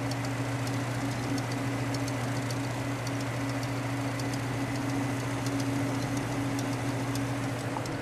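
1933 Frigidaire refrigerator condensing unit running steadily under load: the compressor and its repulsion-induction motor give an even, low hum, with faint ticking over it.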